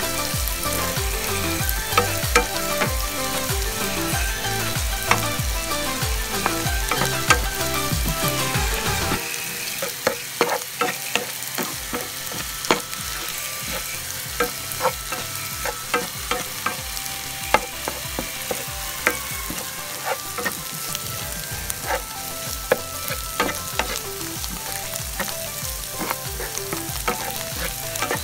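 Shrimp and scrambled egg sizzling in oil in a nonstick frying pan as they are stir-fried, with sharp clicks and scrapes against the pan at irregular intervals.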